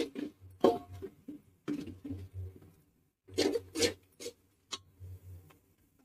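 Metal slotted spatula scraping and knocking against a steel pot, several short strokes, as ground spices are stirred and fried in hot oil.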